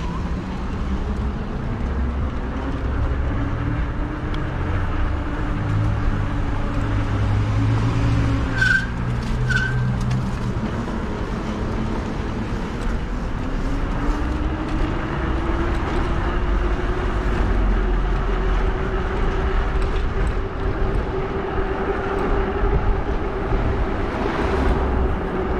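E-bike rear hub motor whining, its pitch rising, dipping, then climbing and holding steady as the bike's speed changes, over a constant rumble of wind and tyre noise. Two short high chirps come about a second apart near the middle.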